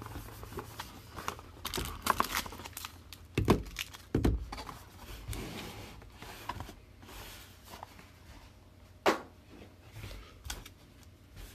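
A cardboard trading-card hobby box being opened by hand: the lid and inner cardboard flap lifted and the wrapped card packs taken out and set on a table, giving irregular rustling and scraping with a few sharp knocks, the loudest about three and a half, four and nine seconds in.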